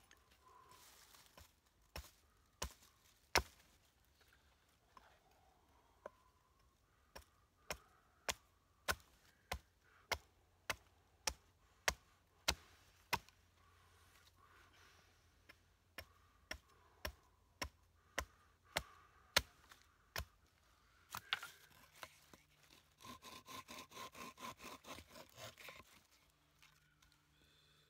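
Small hatchet chopping into a stick of wood on a log, sharp chops in runs about two thirds of a second apart. Near the end comes a quicker run of short rasping strokes, about five a second.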